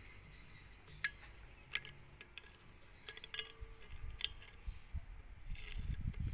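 A plastic spoon stirring a blue nitrate solution in a plastic container, ticking against the container a handful of times. A low handling rumble builds over the second half.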